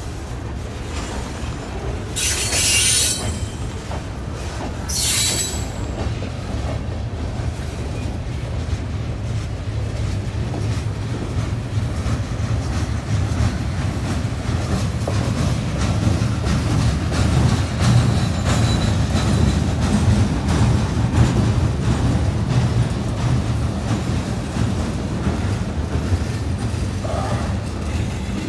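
Freight train of open hopper cars and tank cars rolling past: a steady low rumble of steel wheels with fast clicking over the rail joints. Two short high screeches from the wheels come a few seconds in.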